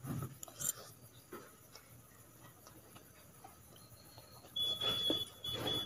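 Mouth sounds of eating chow mein noodles: a slurp as a forkful goes in at the start, small wet chewing sounds, then two sharp slurps near the end with a thin high whistle.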